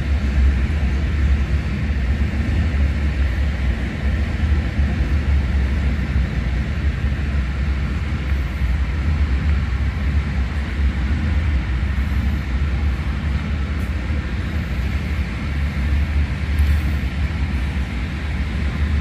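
Steady low rumble of room noise in a large indoor warehouse, an unchanging hum with no distinct events.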